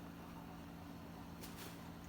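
Faint steady electrical hum over a light hiss from a glass electric kettle heating water that has not yet reached a rolling boil, with a brief soft rustle about one and a half seconds in.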